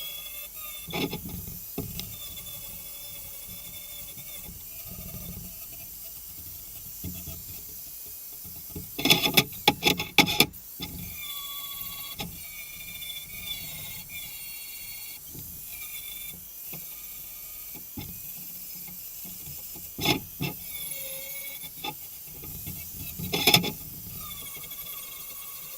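Angle grinder grinding down welds on a steel frame, its whine wavering and dipping as it bites, with a few loud clanks of metal about nine, twenty and twenty-three seconds in.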